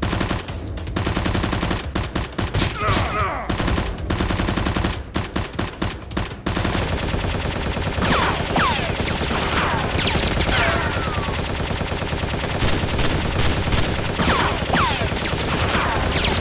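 Automatic-gunfire sound effects dubbed over Nerf blasters firing: rapid bursts of shots for the first six seconds or so, then heavier continuous firing with several short falling whistles around the middle and near the end.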